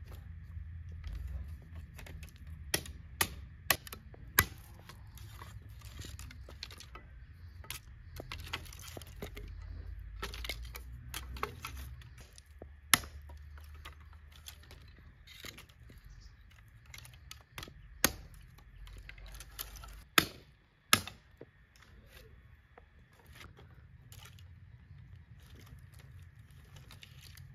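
Thin dry branches being chopped and snapped into kindling: a series of sharp, irregular cracks, several close together about three to four seconds in and a pair about twenty seconds in, over the rustle of twigs being handled and stacked.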